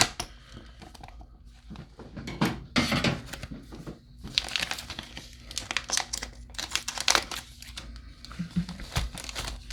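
Packaging being opened by hand, crinkling and tearing in irregular spells with short pauses between them.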